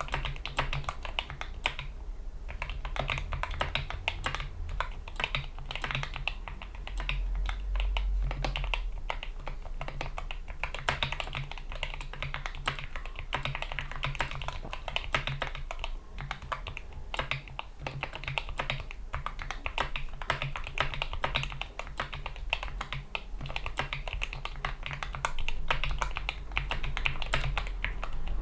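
Steady, fast typing on a GK61 keyboard with lubed Gateron Yellow optical switches, PBT keycaps and rubber O-rings: a dense, continuous run of keystrokes.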